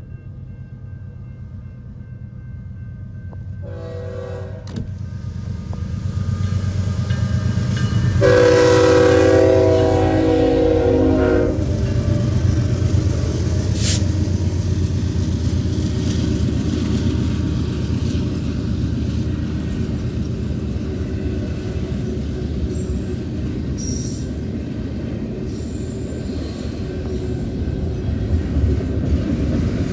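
Diesel locomotives leading an intermodal freight train approach with a building low rumble and sound the horn twice: a short blast about four seconds in, then a longer, louder blast about eight seconds in lasting some three seconds. The lead locomotive then passes and the train's cars rumble and rattle by steadily.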